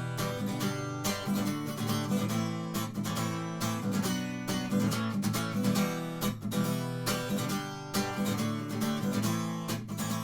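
Acoustic guitar strummed continuously in a steady rhythm of quick strokes, in the style of the gallop strum (down-up-down with the third stroke accented).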